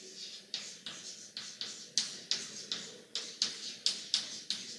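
Chalk writing on a blackboard: a quick run of short, sharp taps and scrapes as each letter is stroked, about four a second.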